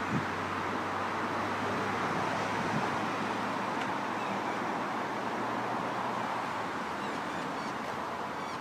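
Steady outdoor background noise: a constant rushing hiss with a faint low hum underneath, easing off slightly near the end.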